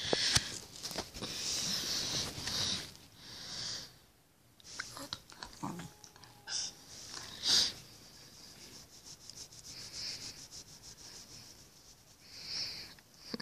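Small fluffy dog snuffling and breathing in irregular bursts while a hand rubs its fur, with soft rustling of fur and bedding.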